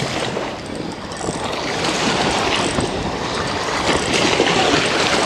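Wind-driven waves splashing and washing against a sloping concrete bank, with wind buffeting the microphone; the wash grows louder about two seconds in.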